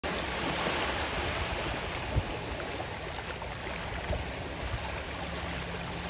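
Small waves lapping and washing up onto a sandy shore, a steady wash of water, with a single brief low thump about two seconds in.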